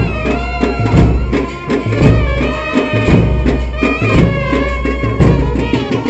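Instrumental folk-style music: a held melody line over a steady drum beat.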